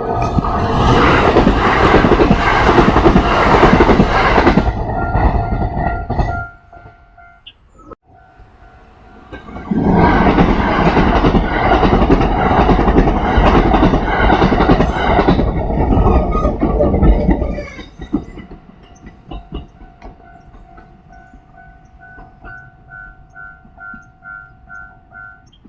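Two Kintetsu electric trains pass a level crossing one after the other. Each rumbles and clatters past for about six or seven seconds, with a short lull between them. Under both, the crossing alarm rings steadily, and it goes on ringing faintly after the second train has gone.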